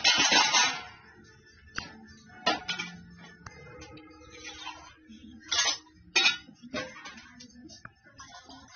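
A burst of clattering in the first second, then scattered clinks and knocks of hard objects against each other.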